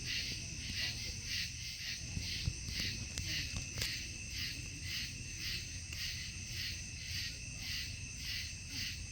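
A chorus of night insects chirping in a steady pulsing rhythm, about two to three pulses a second, over a low rumble, with a few faint clicks.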